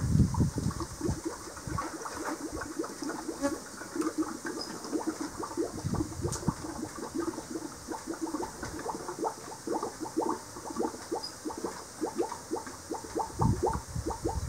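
Thick honey pouring from a metal pot through a plastic funnel into a glass bottle, with a rapid, uneven run of small liquid pops as the bottle fills. A couple of dull knocks of the pot and bottle being handled come near the start and near the end.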